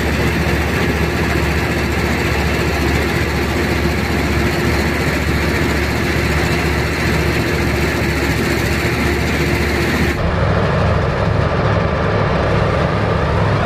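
Diesel engine of a multi-axle box-girder transporter running steadily, with a steady hum over it. About ten seconds in, the sound cuts abruptly to a deeper, heavier engine drone with less hiss.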